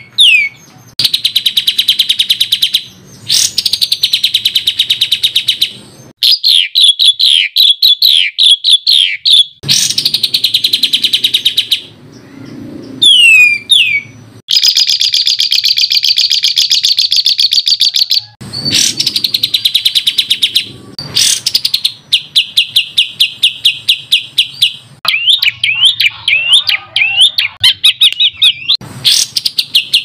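A songbird singing fast 'tembakan' (rapid-fire) phrases: runs of sharp, high-pitched notes repeated in quick succession, in bursts of a few seconds with short pauses. Some phrases are quick downward-sweeping whistles.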